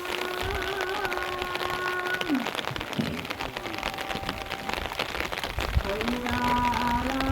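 Steady rain falling, a dense patter of drops, with a background music melody that fades after about two seconds and comes back near the end.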